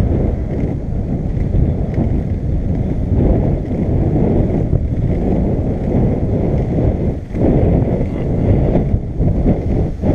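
Skateboard wheels rolling over brick pavers: a steady, coarse rumble, with wind buffeting the microphone.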